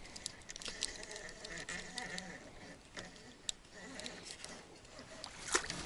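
Faint, scattered sharp clicks and taps from fishing tackle being handled while a hooked carp is brought in, with a faint buzzing that comes and goes.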